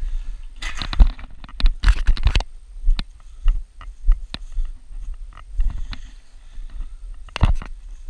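Handling noise on a body-worn camera as the wearer grips steel tower legs and moves through undergrowth: a constant low rumble, rustling and scraping in the first couple of seconds, then scattered footsteps and knocks, with a louder knock near the end.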